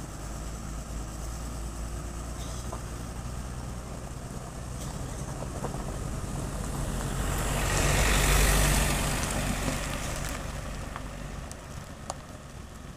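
Motor vehicle engines, a steady low hum that swells to its loudest about eight seconds in as a vehicle goes by, then fades.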